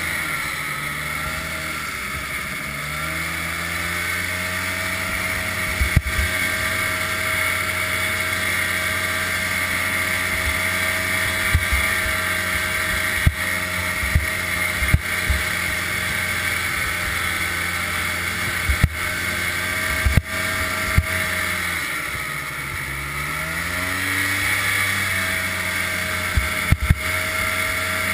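1988 Ski-Doo Safari Citation 250 snowmobile's two-stroke engine running at trail speed. Its pitch dips as the throttle eases off and climbs back, once near the start and again about 22 seconds in. Occasional sharp knocks sound over it.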